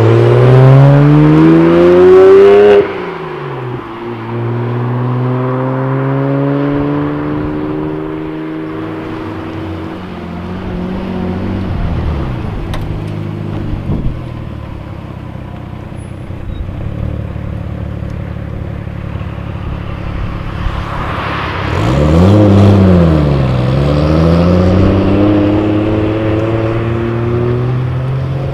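Modified cars driving off one after another, their engines revving and accelerating. First a BMW 1 Series coupe's engine climbs in pitch as it pulls away, then cuts off abruptly about three seconds in. Steadier engine drones follow, and near the end an engine note dips and then climbs again as another car accelerates away.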